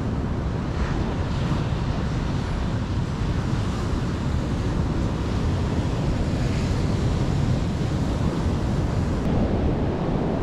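Ocean surf breaking on a beach, a steady wash with wind buffeting the microphone.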